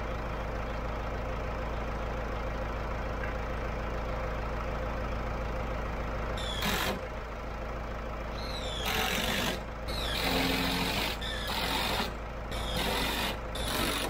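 Tractor engine idling steadily. From about halfway through, a drill driving long screws into timber in six loud bursts, each from a fraction of a second to over a second long.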